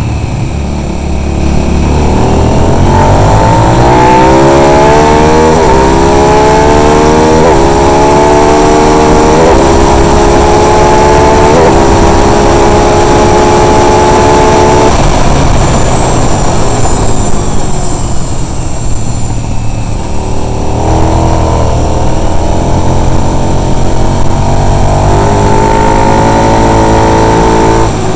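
Racing motorcycle engine recorded onboard, accelerating hard with its pitch climbing and dropping back at about three upshifts. About halfway through the throttle shuts off and the engine falls to a low note, then it climbs again under acceleration near the end.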